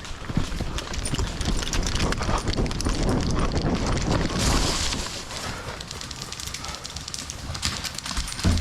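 Quick running footsteps with the rattle and rustle of carried gear, easing off about five seconds in.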